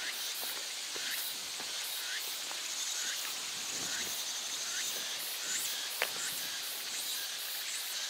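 Summer insects droning in a high, pulsing chorus, with a short chirp repeating about once a second and faint footsteps on a rocky trail.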